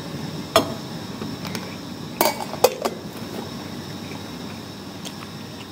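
An eating utensil clinking and scraping against a plastic lunch container: a few short sharp knocks in the first three seconds, two of them close together just after two seconds, then only faint room hiss.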